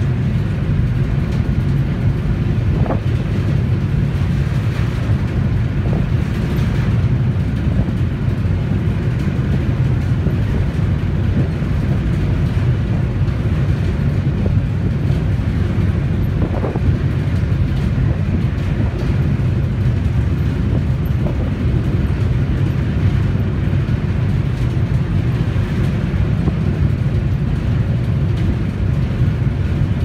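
Steady low rumble of a boat under way, heard on board.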